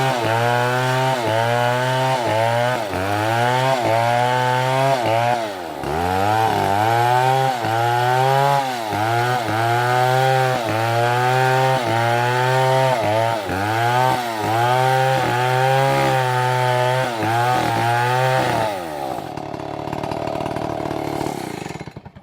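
Two-stroke chainsaw running at high revs while cutting wood, its pitch dipping and recovering about once a second as the chain bites. Near the end the throttle is released and the engine drops to a quieter idle.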